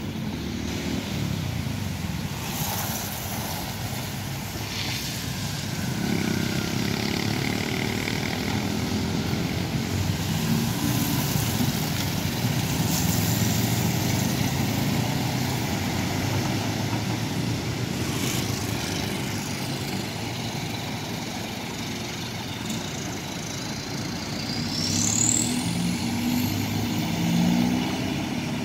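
Engine of a small rail track-inspection motor car running as it approaches and passes, mixed with road traffic. A brief high rising squeal near the end.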